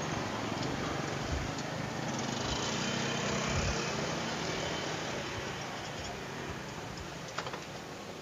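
A motor vehicle passing on the street, growing louder over about three seconds and then fading away. A few light clicks come near the end.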